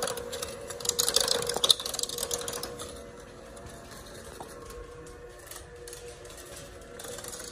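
Electric hand mixer running with its beaters in a plastic bowl of butter-and-sugar cookie dough: a steady motor hum, with loud rattling for the first three seconds or so that then dies down to quieter steady running.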